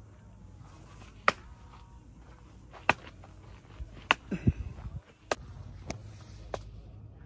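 A wooden stick striking a tree trunk: a series of sharp knocks, about half a dozen, coming at irregular intervals.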